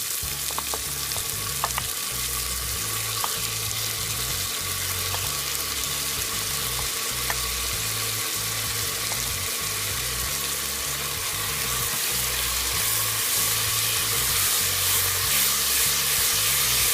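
Oil sizzling steadily as potatoes and black-eyed peas fry in a pressure cooker, with a few light clicks of stirring early on. The sizzle grows louder a little over two-thirds of the way through.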